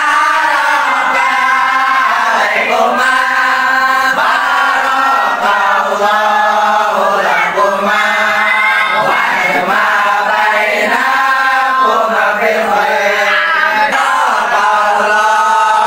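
A group of young men chanting together in unison from song sheets: a loud, steady group chant in long held notes.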